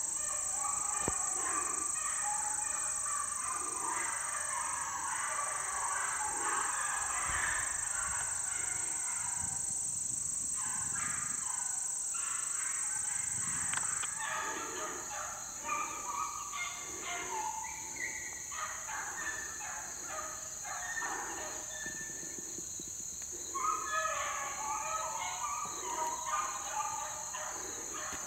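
A pack of beagles baying as they run a rabbit track, many short overlapping cries repeating throughout, over a steady high drone of insects.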